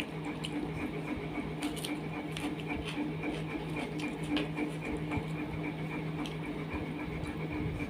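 Fingers mixing rice and curry on a steel plate, making scattered small clicks and squishes over a steady mechanical drone.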